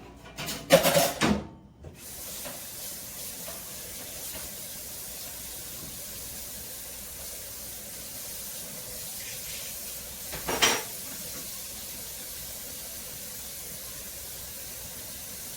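Kitchen sink tap running steadily while a utensil is rinsed off under it. There is a clatter of handled kitchenware about a second in, before the water settles into a steady rush, and a single sharp knock against the sink about two-thirds of the way through.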